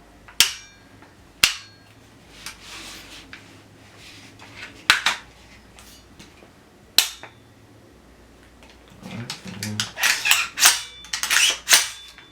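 Sharp metallic clicks and snaps of an RF-15 rifle's parts being locked together during reassembly: four single clicks spaced a second or more apart, then a quick run of clicking and rattling near the end.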